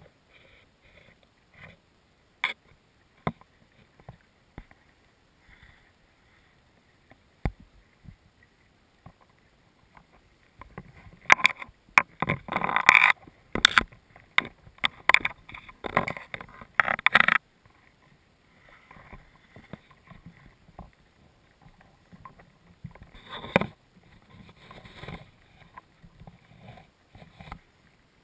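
Scattered clicks and taps close to the microphone. Then, from about eleven seconds in, several seconds of loud rustling and scraping among leaves and soil, followed by softer rustling.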